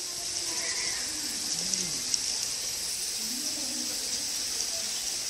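A steady high hiss with faint, distant human voices and a couple of small clicks.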